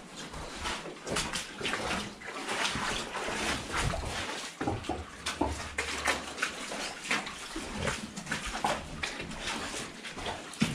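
People wading through shallow water in a mine tunnel: a steady, irregular run of splashing footsteps.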